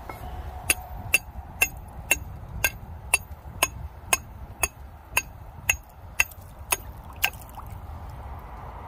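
A hammer driving a trap's anchor stake down: fourteen even blows, about two a second, each with a short ring, stopping about seven seconds in.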